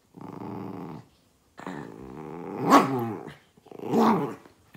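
Red miniature poodle growling in play while tussling with a sock: three growls, the middle one longest and loudest.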